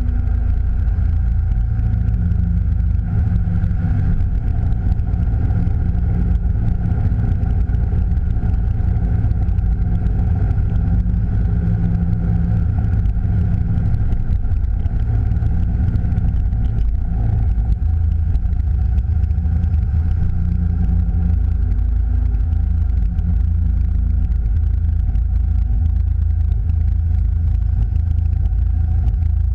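Chevy Camaro SS's LS V8, fitted with long-tube headers and an SLP Loudmouth exhaust, running steadily under light throttle at low rolling speed, a deep even rumble with no hard revving.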